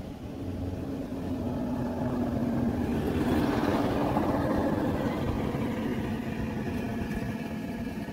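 An engine passing by, swelling to its loudest about three to four seconds in and then fading away.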